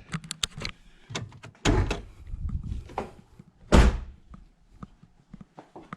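Latch clicks and a few heavy thunks, the loudest about four seconds in, as the hood of a Jeep Grand Cherokee is unlatched and opened.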